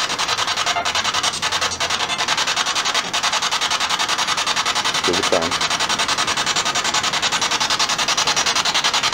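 Spirit box, a handheld radio sweeping rapidly through stations, giving out a steady, choppy hiss of static that pulses several times a second. A brief snatch of broadcast sound breaks through about five seconds in.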